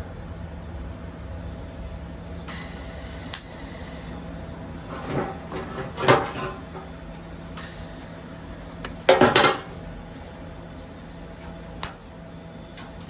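Metal parts clanking and knocking, loudest about nine seconds in, over a steady electrical hum, with two short hissing stretches of about a second each.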